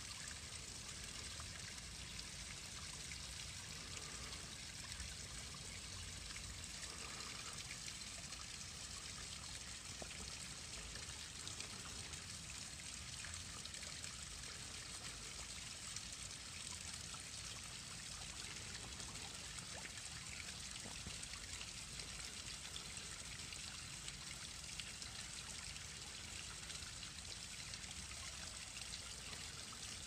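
A small waterfall: a thin stream of water trickling down a rock face into a pool, a steady, even rush of water.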